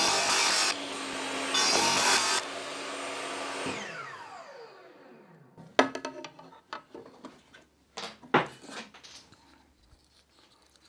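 Table saw running and cutting through a bamboo board twice in the first two and a half seconds. It is switched off about four seconds in, and its whine falls as the blade spins down. A few short clacks follow as the cut pieces and a plastic push stick are handled on the saw table.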